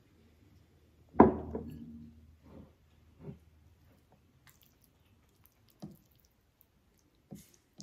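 A ceramic bowl is set down on a hard table with a sharp knock that rings briefly, about a second in. After it come a few soft, wet squishes as fingers mix curry gravy into rice.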